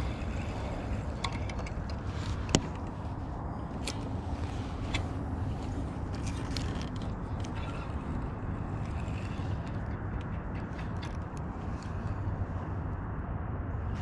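Steady low rumble of wind on the microphone, with scattered light clicks and knocks of a spinning reel and tackle being handled in a kayak. One sharper click comes about two and a half seconds in.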